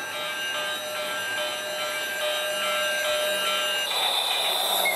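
Battery-powered toy train running on a plastic track toward the microphone, its motor whirring and wheels rolling and rattling, getting gradually louder as it approaches.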